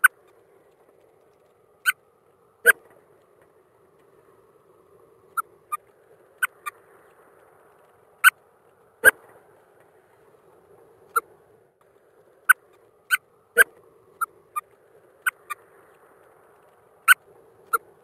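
Burchell's courser giving short, sharp clipped calls at irregular intervals, often two or three close together, about eighteen in all. A faint steady low noise runs underneath.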